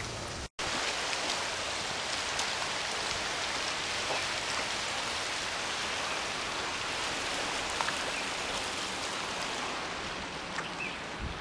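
After a brief silent gap about half a second in, a steady rushing hiss of sea water washing among the shoreline rocks, with a few faint ticks.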